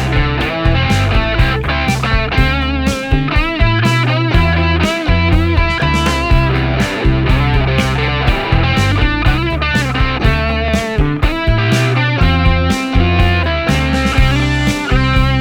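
Rock music with distorted electric guitar, bass and drums, the drums hitting in a steady regular beat.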